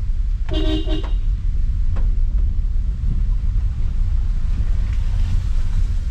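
Steady low road and engine rumble inside a moving Suzuki car's cabin. A short pitched sound breaks in about half a second in, and a brief click comes at about two seconds.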